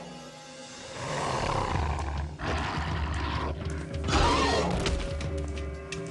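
Background music under the snarls and roars of two large animals fighting, with the loudest snarl about four seconds in.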